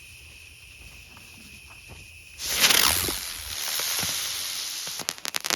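Aerial spinner firework igniting with a sudden loud hiss about two and a half seconds in, hissing as it spins and lifts off, then several sharp cracks in quick succession near the end. Crickets chirp steadily underneath.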